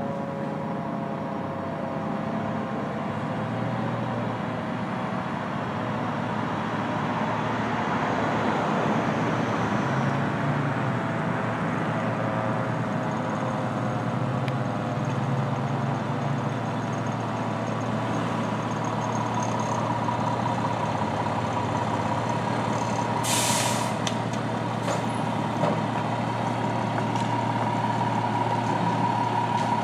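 Fire engine's diesel engine running steadily, with a short sharp air-brake hiss about three-quarters of the way through. A steady high tone joins in past the middle.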